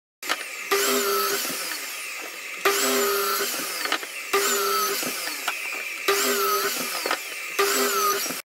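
Power saw running and cutting pine boards, the same whining cut repeating about five times in quick succession. It starts and cuts off abruptly.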